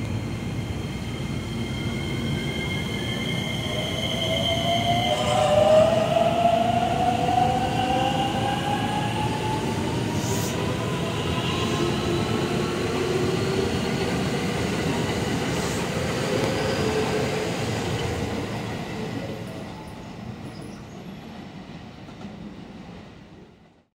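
JR West suburban electric multiple unit pulling along the platform, its inverter-driven traction motors whining up in pitch as it gathers speed over steady wheel-on-rail rumble. The sound eases off and fades out near the end.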